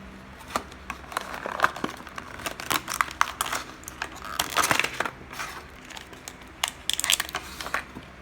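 Diecast toy car packaging being handled and opened: irregular crinkling, crackling and clicking of plastic and card, in clusters, stopping shortly before the end.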